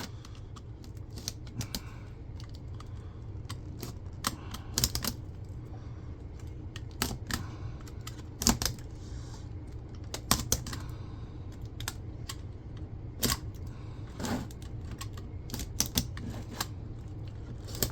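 Irregular sharp clicks and snaps of small plastic and metal monitor parts being pried and worked loose by hand, over a steady low hum.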